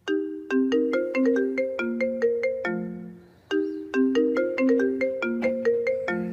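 Alexa smart speaker alarm going off: a short marimba-like melody of struck, fading notes, played twice, each phrase lasting about three seconds.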